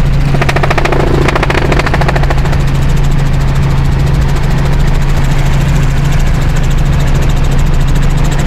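Helicopter cabin noise in flight: a steady low drone from the engine and main rotor with a fast, even pulsing of the blades. A higher buzzing joins it briefly from about half a second to two seconds in.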